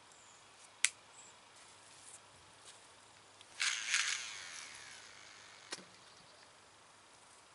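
Baitcasting reel during a cast: a sharp click, then about three and a half seconds in a fast whirr of the spool paying out line, its pitch falling as the spool slows, and a second click about two seconds later.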